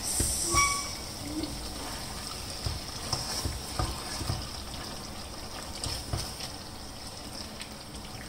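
A black slotted spatula stirring chicken pieces in thick gravy in a steel pot: wet, sloppy stirring with scattered light scrapes and knocks against the pot, and a brief ring about half a second in.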